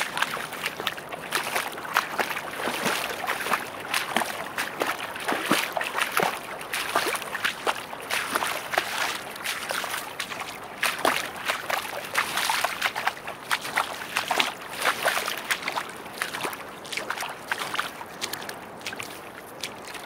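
Someone wading through shallow sea water: legs splashing and sloshing in an uneven, continuous string of strokes, with waves washing in the background.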